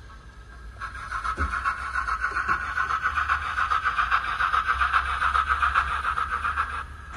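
Steam locomotive sound played through a small speaker by the Zimo sound decoder in a Hornby OO gauge streamlined W1 model: a loud, sustained, breathy blast that starts about a second in and cuts off shortly before the end, over faint running noise.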